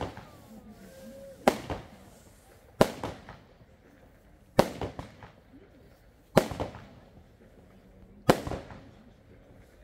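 Small consumer firework battery (a Lesli QWatt 16-shot gold cake with coloured stars) firing shot after shot: five sharp bangs about one and a half to two seconds apart, each followed by a few fainter pops.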